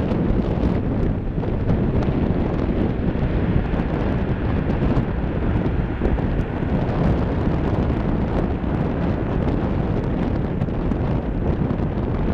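Strong wind buffeting the microphone over the steady jet engine noise of an Airbus A330-200 rolling out along the runway after touchdown.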